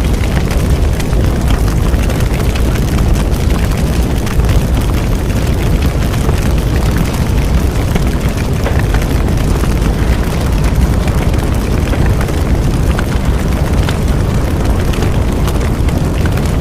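Bonfire burning: a steady low rumble of flames with scattered small crackles and pops of burning wood.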